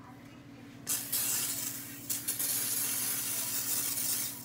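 Aerosol cooking spray hissing onto a pan in two bursts. The first lasts about a second, starting about a second in; after a brief pause a second, longer spray runs about two seconds.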